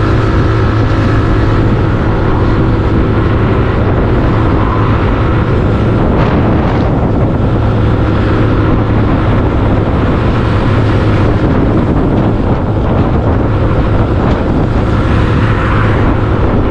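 Suzuki Skydrive Crossover 113cc scooter cruising at a steady speed: a steady engine drone under a heavy rush of wind on the microphone.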